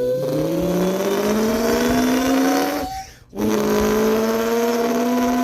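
Two voices imitating a supercharged Dodge Hellcat launching and accelerating: one does the engine note, the other the supercharger whine. The pitch climbs steadily, breaks off for a moment about three seconds in, then picks up again on a higher, slowly rising tone.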